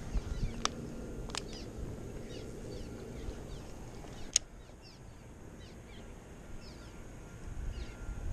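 Small birds chirping over and over, each a short falling chirp, above a low rumble. A few sharp clicks cut through, the loudest about four seconds in.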